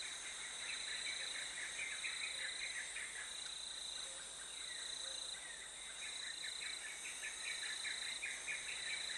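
Insects trilling in a natural ambience: one steady high-pitched trill that breaks off briefly every second or so, over many quick short chirps.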